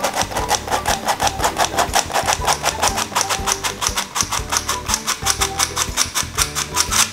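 Hand-operated flour sifter being worked over a stainless-steel bowl: a rapid, even clicking of about six clicks a second as its agitator sweeps flour through the mesh, with soft background music underneath.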